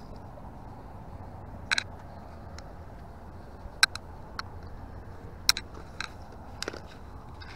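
About six sharp clicks and taps, spaced irregularly, over a steady low hum.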